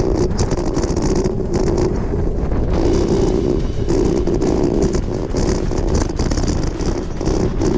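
Wind rumbling on the microphone over the steady crunching rumble of gravel bike tyres rolling along a dirt road.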